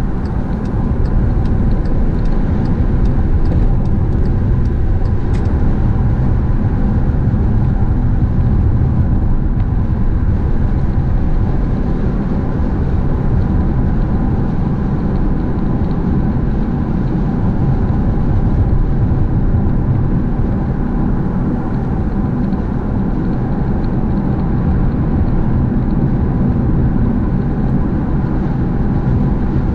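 Car driving at highway speed, heard from inside the cabin: a steady rumble of engine and tyre noise.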